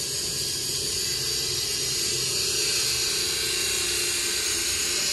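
Steady mechanical drone with a hum and a high hiss, unbroken and even.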